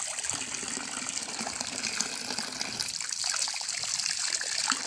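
Water gushing steadily from a PVC pipe outlet fed by a solar water pump, splashing over a hand and onto the ground.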